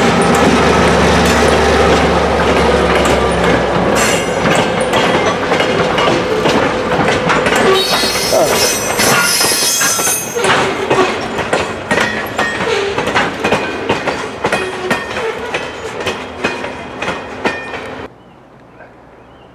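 Diesel freight train passing close by: GMTX 229's engine hum for the first few seconds, then hopper cars rolling past with wheels clacking over rail joints and a high wheel squeal about eight to ten seconds in. Near the end the train sound cuts off suddenly to quiet outdoor background.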